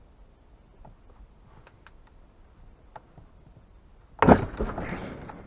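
Flywheel nut of a two-stroke chainsaw engine breaking loose under a wrench with a sudden loud crack about four seconds in, followed by about a second of noisy clatter. Before it, only faint small clicks of tools on the engine.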